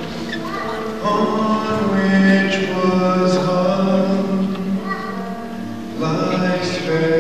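Slow sung music: voices holding long notes that change pitch every second or so, over accompaniment.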